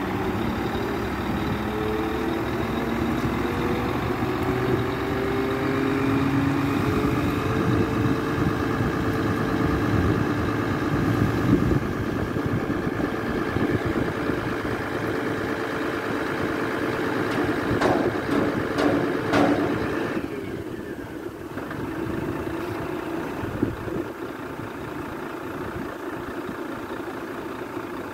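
Skip loader truck's engine running under load to drive the hydraulic arms as they lower a steel skip bin, its pitch rising over the first few seconds and then holding steady. A few metal clanks come near the end of the lowering, about two-thirds of the way through, and then the load drops and the engine settles to a quieter idle.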